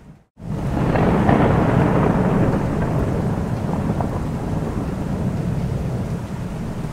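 Thunder rumbling over steady rain, swelling in after a brief dead gap at the very start and loudest about one to two seconds in, then fading into the continuous wash of rain.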